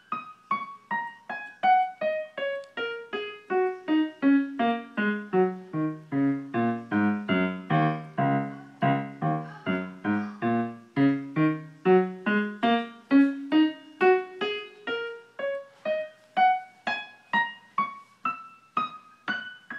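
A keyboard played one note at a time, about two or three notes a second, using only the black keys: a long descending run down the pentatonic black keys, then a climb back up. The tune is an Asian-sounding scale.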